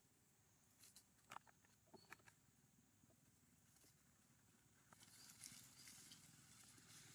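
Faint crackles of dry leaves for a couple of seconds, then from about five seconds in a soft, growing rustle of dry leaves under a monkey's feet as it walks across the leaf litter.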